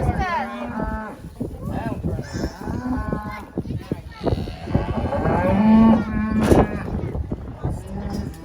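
Several cattle mooing and bawling, with many calls overlapping.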